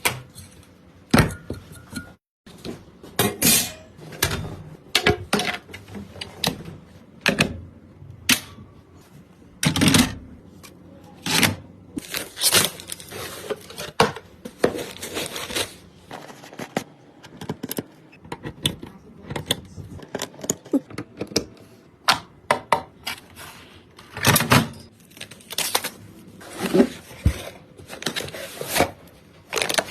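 Hard computer parts being handled and fitted by hand: irregular clicks, clacks and knocks of metal and plastic, a few louder knocks among many light taps.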